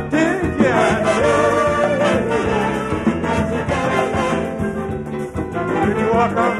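Live calypso band playing an instrumental passage with a steady beat, keyboards and guitar among the instruments.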